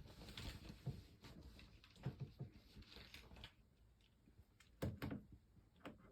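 Near silence with faint scattered taps and rustles, then a couple of sharper clicks about five seconds in.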